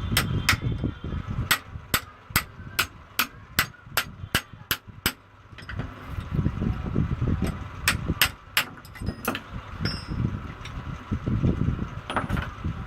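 Hand-tool work on a strapping-machine part: a run of about a dozen sharp taps, two or three a second, then three more about eight seconds in, over low rumbling handling noise.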